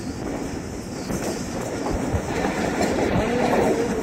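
Moving train running along the track, with a steady rumble and the clickety-clack of its wheels over the rails.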